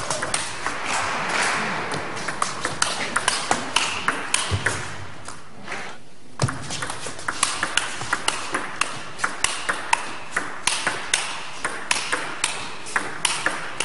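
Table tennis rally: the ball clicking quickly back and forth off the bats and the table in a fast run of hits. A short break about six seconds in is followed by another rally.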